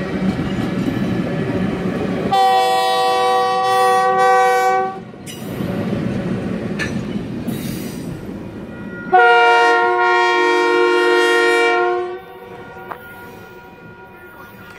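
Passenger railcars of a Canadian Pacific train rumbling and clattering past on the track, with two long blasts of the lead FP9 diesel locomotive's multi-tone horn, the first about two seconds in and the second about nine seconds in. After the second blast the rumble fades away.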